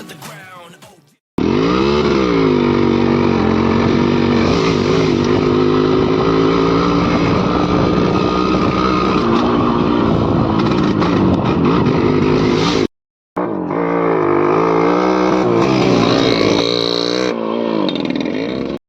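Yamaha RX100 two-stroke motorcycle engine running hard: a quick rev at first, then a long steady high-rpm run. The sound cuts out for a moment about two-thirds of the way through and comes back with the pitch rising and falling as the throttle is worked.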